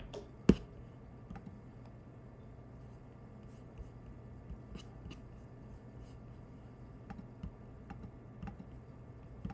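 Clicks at a computer: one sharp click about half a second in, then scattered faint mouse and keyboard clicks over a steady low hum.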